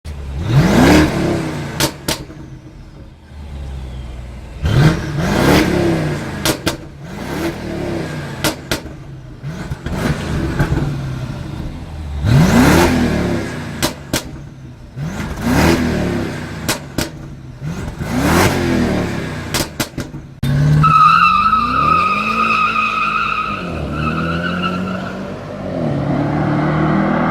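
Stage 1 tuned BMW N63TU 4.4-litre twin-turbo V8 revved in a series of sharp throttle blips. As the revs fall after each blip, the exhaust gives strings of overrun pops and crackles. About twenty seconds in the sound cuts abruptly to the engine's pitch rising and falling under a steady high whine.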